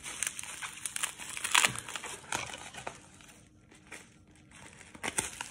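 Plastic bubble wrap crinkling and crackling as a bundle of cards wrapped in it is handled, then cut open with scissors, with a few sharp snips near the end.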